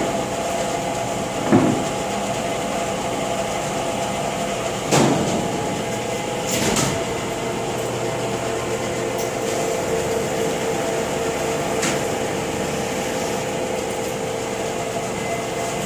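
24" x 72" LeBlond Regal engine lathe running with a steady hum and a gear whine of several held tones, with three short knocks over the first seven seconds.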